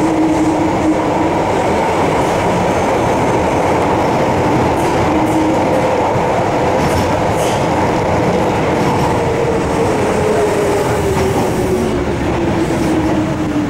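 Osaka Subway 70 series linear-motor train running through the tunnel, heard from inside the car: a steady rumble and wheel noise with the whine of its Mitsubishi GTO-VVVF inverter. The whine falls steadily in pitch through the second half, with a few light clicks from the track.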